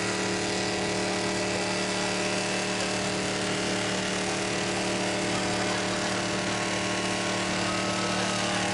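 An engine or motor running steadily at one constant speed, a drone held at an unchanging pitch.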